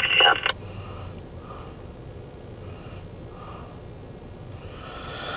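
A short burst from a railroad scanner radio right at the start, ending in about half a second. After it comes a low, steady engine rumble from the heavy tow truck, with faint beeps about once a second.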